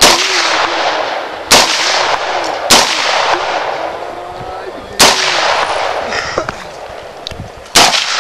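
Five single shots from an AR-15-style rifle, fired at uneven intervals of one to three seconds, each followed by a long echoing tail.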